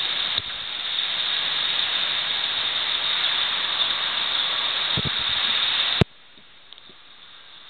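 Heavy rain falling, a steady hiss, with a couple of soft knocks about five seconds in. About six seconds in there is a click, and the rain drops abruptly to a much fainter hiss.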